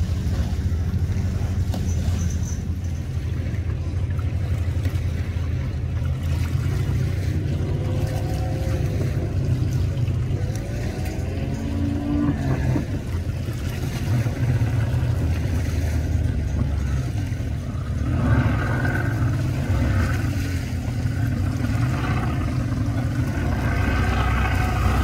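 Hot rod speedboat's engine running at speed: a steady low rumble with some rising and falling pitch, getting louder near the end.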